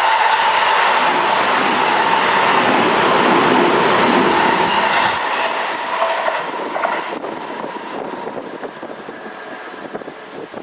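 Seibu 20000 series electric train running past, its wheels clattering over the rail joints. About five seconds in the noise drops and trails away as the train moves off.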